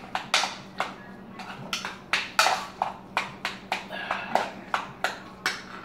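Metal utensil knocking and scraping in a small metal saucepan while mashing potatoes and broccoli together, in quick irregular strokes about three a second.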